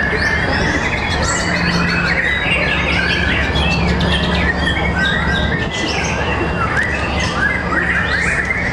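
Several white-rumped shamas (murai batu) singing at once in competition, a dense tangle of overlapping whistles, trills and chirps, over a steady low hum.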